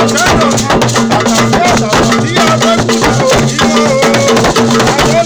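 Live percussion music with shaken rattles and drums beating a fast rhythm, with voices singing over it.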